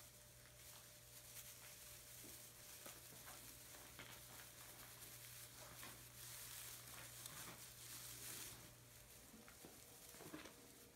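Faint rustling and crackling of dry straw bedding as a puppy moves about and scratches itself, with scattered light ticks over a low steady hum.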